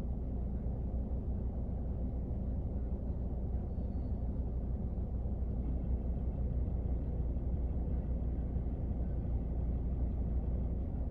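Rain falling on a car, heard from inside the cabin: a steady low rumble that does not change.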